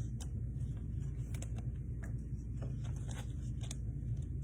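Faint, irregular light clicks and rustles of trading cards and packaging being handled, over a steady low hum.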